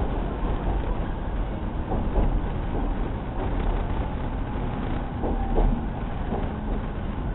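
Inside a JR East 209 series electric commuter train slowing into a station: a steady low rumble of wheels and running gear with scattered knocks. A faint steady hum comes in about five seconds in.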